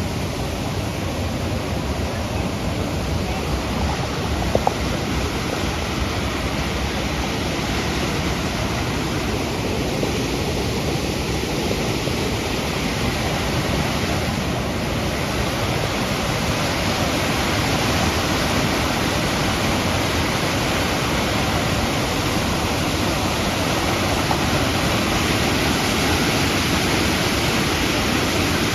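Waterfall: a steady rush of falling water that grows a little louder near the end, with one brief click about five seconds in.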